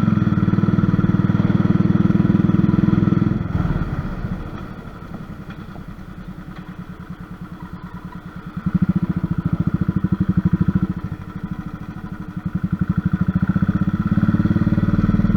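Royal Enfield motorcycle engine pulling up a hill climb, its exhaust beat loud under throttle, easing back about four seconds in and again around eleven seconds, then opening up again each time.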